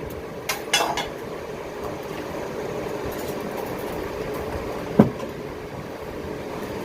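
Electric blower forcing air up through a coal forge fire that is just catching, a steady rushing noise. A few light metal clinks near the start and one sharp metallic knock about five seconds in.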